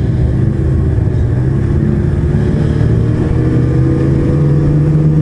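Ski-Doo E-TEC two-stroke snowmobile engine running at trail speed, a steady note that rises slightly in pitch a little past halfway.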